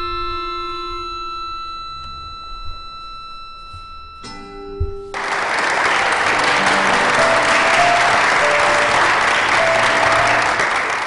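Sustained ringing musical tones fade away, and a new struck note sounds just after four seconds. About five seconds in, audience applause breaks out suddenly and carries on, with faint musical notes beneath it.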